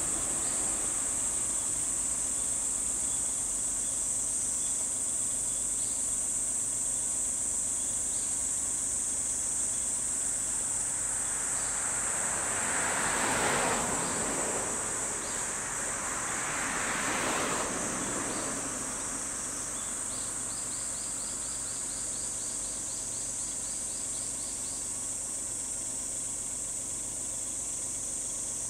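Steady, high-pitched chorus of cicadas. About halfway through, two swells of broad rushing noise rise and fade a few seconds apart, and later a quick run of faint ticks comes in.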